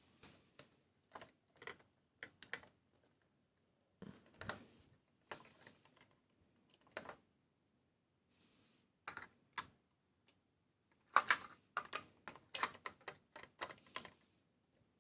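Irregular small clicks and taps of model-kit parts being handled and fitted on a work surface during assembly of a 1:24 scale diecast car kit. A brief soft rustle comes near the middle, and a quick run of clicks follows in the last few seconds.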